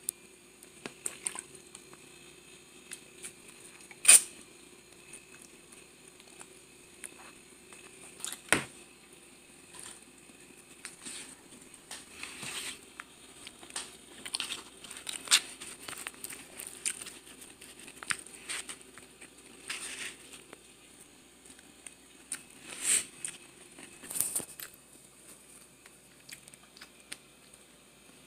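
Scattered handling noises: clicks, taps and crinkling of a plastic water bottle and things on a table, with a sharp click about four seconds in and a knock about eight and a half seconds in.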